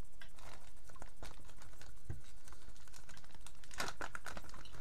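Light, irregular clicks and rustles of packaging being handled, with a denser cluster about four seconds in: the sticker sheet being unwrapped from its plastic.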